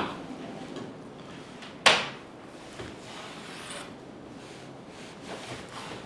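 Kitchen knife cutting lamb fat tail into pieces and knocking on the cutting board: a sharp knock at the start and a louder one about two seconds in, with a few fainter taps later.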